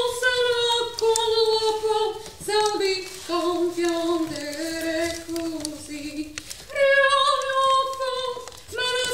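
A single high voice singing long held notes that step down in pitch, with a short break about six and a half seconds in before a higher note starts again; no accompaniment stands out.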